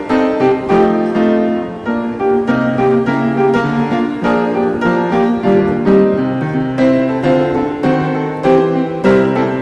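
Background piano music: a melody of short notes over a held lower line.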